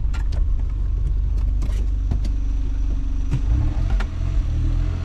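Engine and road noise of a moving Chrysler K-car heard from inside the cabin: a steady low rumble with a hum over it and a few light clicks.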